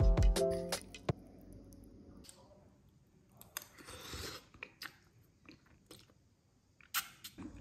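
Background music that ends in the first second, then a person eating glass-noodle soup from a spoon: quiet chewing, a soft slurp of noodles about four seconds in, and a few small clicks.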